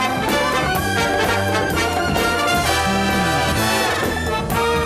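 A studio big-band orchestra plays lively dance music, led by trumpets and trombones, with a short downward trombone-like slide about three seconds in.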